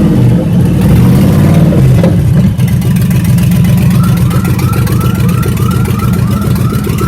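LS3 6.2-litre V8 swapped into a Chevrolet Impala, running with a steady deep exhaust note. From about halfway through, a short high chirp repeats roughly twice a second over the engine.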